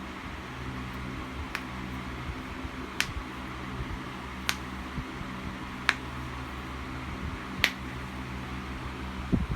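A person's own joints cracking: about five sharp, separate pops, roughly one every second and a half.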